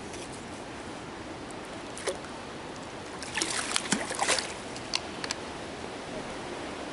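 Splashing as a landing net is swished through the pond water to release a trout, a burst of sharp splashes lasting about a second near the middle. A few single sharp clicks come before and after it, over a steady hiss.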